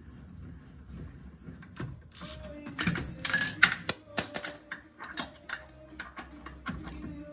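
Metallic clicks, scrapes and rattles as a wire-spoke wheel cover is worked at with a screwdriver. A brief high metallic ring comes in the loudest stretch, a few seconds in.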